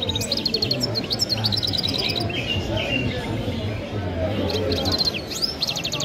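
Caged songbird singing: fast trills of high, evenly repeated notes broken by quick downward-sliding whistles, in several bursts. A steady low hum runs underneath.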